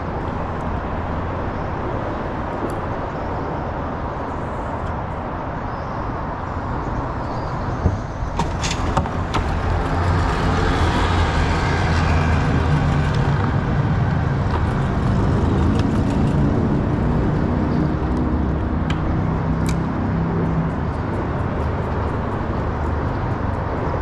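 Traffic rumbling on the concrete road bridge overhead, a steady low roar with a hum. A heavier vehicle passes louder from about ten seconds in, with a few sharp clicks and knocks just before it.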